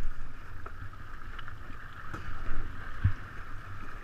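Water washing along the hull of a 49er sailing skiff under way, with wind on the microphone and a few knocks from gear and crew moving on the deck, the heaviest a single thump about three seconds in.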